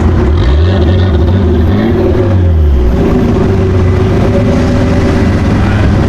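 Sports car engine accelerating hard, the revs climbing twice with a gear change between, then holding steady.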